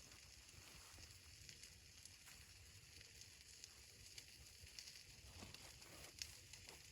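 Near silence: a faint steady hiss with a few scattered soft ticks.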